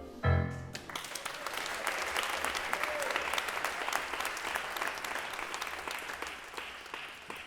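The last note of a song, then an audience applauding, the clapping easing off near the end.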